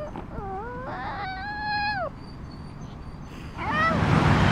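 A small long-haired Chihuahua whining in excitement. One long whine about half a second in rises, holds high for about a second and drops away, and a second, shorter wavering whine comes near the end.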